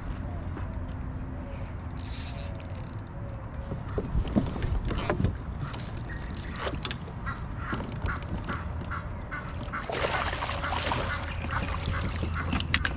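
Birds calling in short, repeated notes over a low steady background rumble, with a louder burst of noise about ten seconds in.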